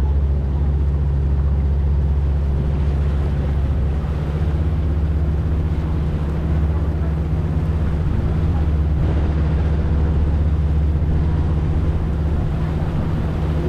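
Passenger tour boat's engine running steadily under way, a constant low hum with a noisy hiss over it.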